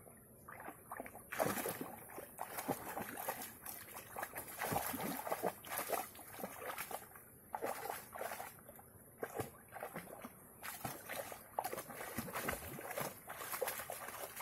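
A boxer dog wading and pawing in a shallow stream, splashing the water in irregular bursts as she tries to grab a floating ball.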